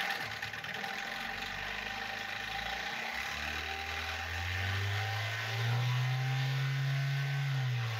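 Toyota 3S-FE inline-four engine running with a hard knock that the owner suspects is piston slap. It idles, then is revved up about three to four seconds in, held at higher revs, and drops back near the end.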